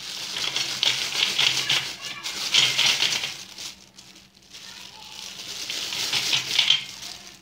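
Thin clear plastic bag crinkling and rustling as hands squeeze, press and lift it, with the dry Fuller's earth chunks inside it shifting. Two loud spells of crackling, with a quieter lull about halfway through.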